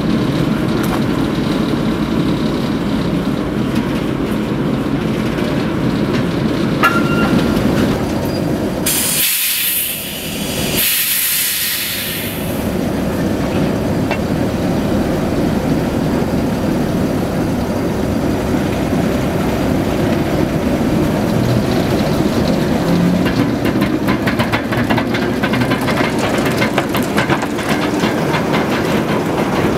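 Preserved train moving off, with a steady rumble of coaches and running gear. About nine seconds in there is a loud burst of steam hiss in two pushes, lasting some three seconds. Later the coaches roll past close by.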